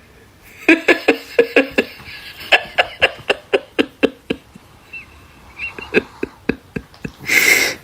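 An animal giving a rapid run of short, sharp calls, several a second, thinning out after the middle; a short loud rushing noise comes near the end.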